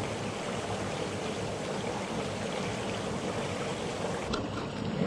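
Steady rush of flowing stream water, with a single click about four seconds in.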